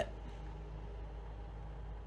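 Faint steady hum and hiss of a water-cooled desktop PC's radiator fans and pump running.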